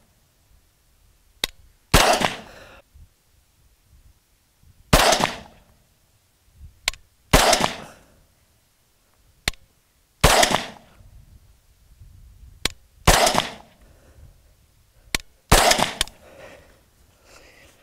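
AR-15 rifle in 5.56 firing single shots at a slow, even pace, about seven in all, each a loud report with a short echo tail. A fainter sharp crack comes about half a second before each report.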